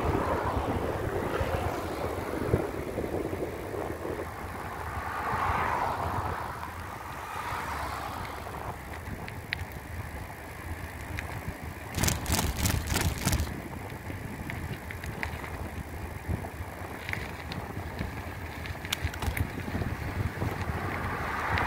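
Riding a bicycle along a road shoulder: wind buffeting the microphone over tyre noise on asphalt, with cars passing now and then. A little past halfway comes a quick run of sharp knocks and rattles, like the bike shaking over ridges in the road.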